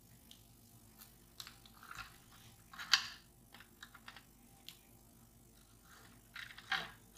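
Small clicks and rustles of a wrist strap being threaded and looped through the base of a plastic light-stick handle. There is a louder rustle about three seconds in and another near the end.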